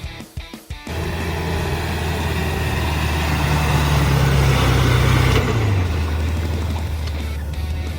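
Heavy work vehicle's engine running steadily, rising in pitch and getting louder toward the middle, then dropping back. A loud rushing, hissing noise builds over it and cuts off suddenly about five and a half seconds in.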